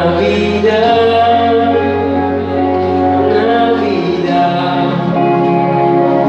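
Man singing into a handheld microphone, amplified, over instrumental accompaniment with sustained bass notes.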